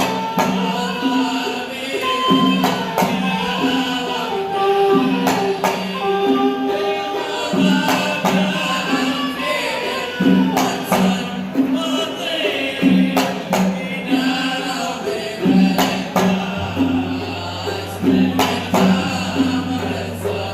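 Hadhrami sawt 'awani folk song: singing over hand percussion with a steady, regular beat. A low steady tone joins near the end.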